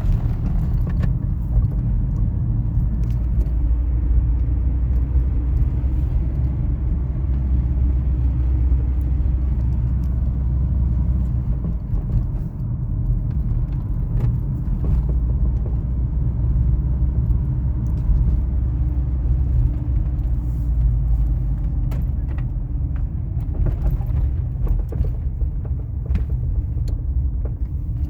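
2000 Toyota RAV4 on the move, a steady low road rumble with intermittent short knocks, more frequent near the end. The knocks are the suspension clunk the owner is chasing, which persists after new sway bar bushings and links, so the sway bar is ruled out.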